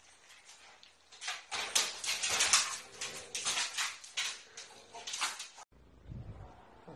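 Wire playpen rattling and clattering in quick, irregular strikes as a French bulldog scrambles over the top of its gate and drops inside. The clatter stops abruptly near the end.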